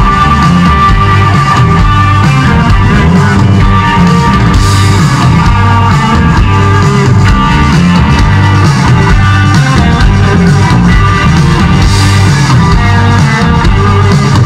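Live band playing loud rock-tinged music on electric guitars, bass and keyboards, over a steady driving beat.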